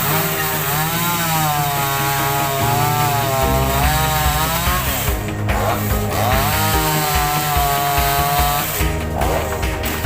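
Chainsaw running and cutting wood, its engine pitch sagging under load and rising again several times, with background music underneath.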